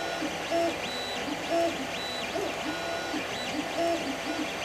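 FDM 3D printer printing: its stepper motors sing in short pitched notes that ramp up, hold and ramp down as the print head moves back and forth, several times a second, over the steady whir of its cooling fans.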